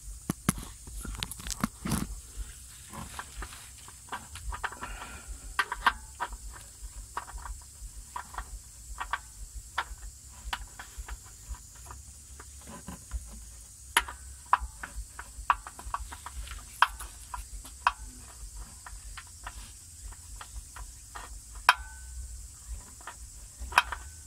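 Engine oil dripping out of a Daihatsu Hijet Cargo's drain into a catch pan during an oil change: irregular sharp drips, sometimes several a second, sometimes a second or more apart.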